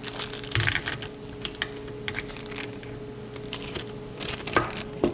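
Small clear plastic bag crinkling, with light irregular clicks as metal pen-turning bushings are put into it and handled. A steady low hum runs underneath.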